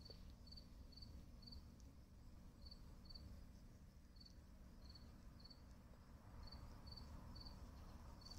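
Near silence with a faint insect chirping in the background: short high chirps every half second or so, often in pairs.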